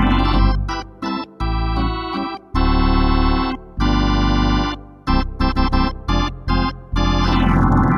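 Intro music of electronic keyboard or organ chords, played in held blocks and short stabs with brief gaps between them, with a sweeping effect near the start and again near the end.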